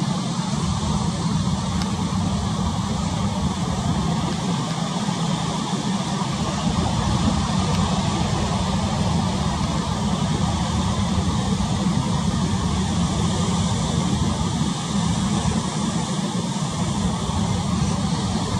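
Steady coastal ambience of wind and choppy sea: an unbroken low rumble with a hiss above it.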